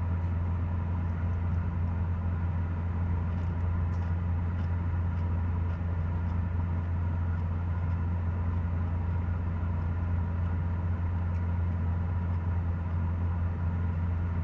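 Steady low hum of an idling car engine with the air conditioning blowing, plus a few faint light clicks.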